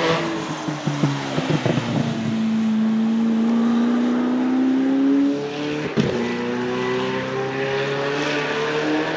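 The 5.8-litre twin-supercharged V8 of a Zenvo TSR-S goes past at close range and accelerates away, with a quick run of sharp cracks about a second in. The engine then pulls with steadily rising pitch, breaks with a sharp click about six seconds in as it shifts up, and pulls again.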